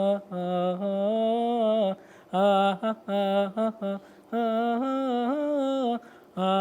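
Men's voices singing wordless a cappella phrases as improvised vocal sound effects: held notes broken by short gaps, with the pitch rising about five seconds in.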